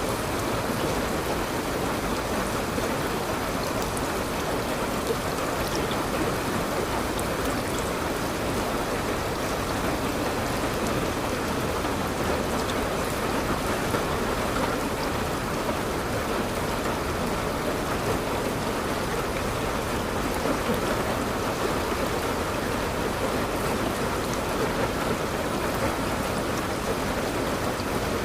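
Steady rain falling, a continuous even hiss with scattered faint drop ticks.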